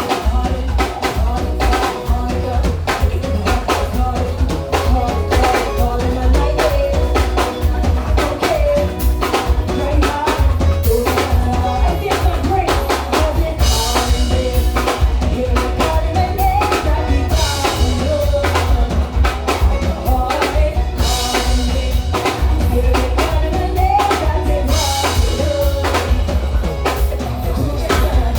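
Soca music played loud over a stage PA system, with a heavy bass and a driving drum-kit beat.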